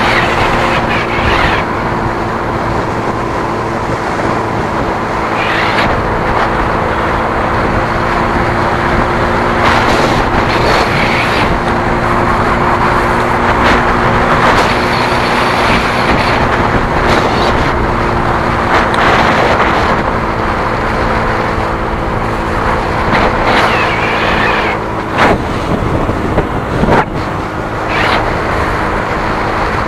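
A vehicle cruising at steady speed on a highway, heard from on board: a steady engine hum under constant rushing wind and tyre noise, with a few short, sharper noises near the end.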